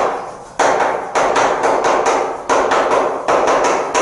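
Chalk knocking and scraping on a chalkboard as a word is written: a quick, uneven series of sharp taps, each with a short ring after it.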